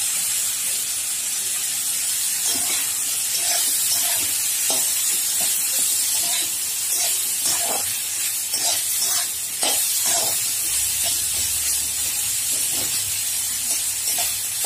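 Chopped onion, tomato and cashews frying in oil in a kadai, a steady sizzle, with a spatula scraping and tapping through them now and then as they are stirred.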